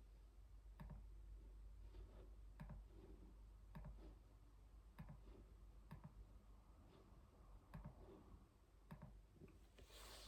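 Faint key presses on a keyboard: single clicks at uneven intervals, about one a second, with a broader, noisier clack near the end.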